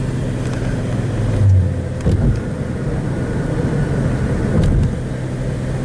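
Steady low rumble of a car's engine and tyres heard from inside the moving car, with a few brief low thumps about a second and a half, two seconds and near five seconds in.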